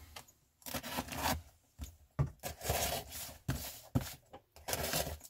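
Knife blade slitting the packing tape on a cardboard parcel: a run of short scraping cuts, with a few sharp taps of the blade or box on the table.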